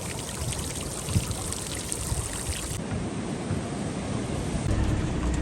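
Steady rush of moving water, like a mountain river or stream, with a crisp fizzing layer on top that cuts off abruptly about three seconds in.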